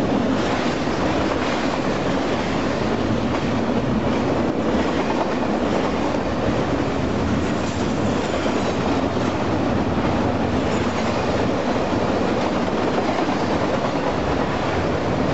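Union Pacific intermodal freight train's double-stack container and trailer flatcars rolling past close by: a steady, loud noise of steel wheels running on the rails.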